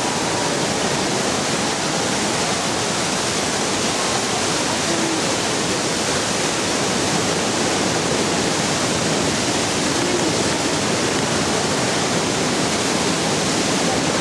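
Ditumabo Falls pouring: a steady, even rush of falling water.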